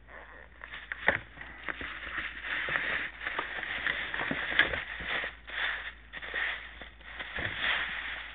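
Close handling noise from a pair of sneakers: irregular rustling and rubbing with scattered knocks and clicks.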